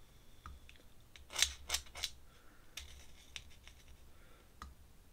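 An ink pen scratching across paper in a few short, quick strokes, the loudest cluster about a second and a half in, then a couple of single light scratches.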